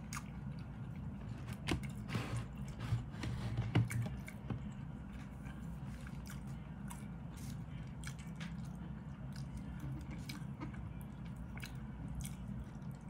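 A person chewing a mouthful of rice and eggplant with the mouth closed: soft wet mouth noises and small clicks, busiest in the first four seconds, then quieter.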